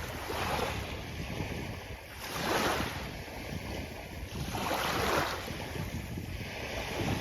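Sea waves washing onto a beach, a surge of surf about every two seconds, over a steady low rumble of wind on the microphone.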